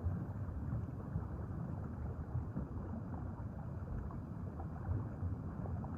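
Steady low rumble and hiss of water noise with no clear tones, heaviest in the bass.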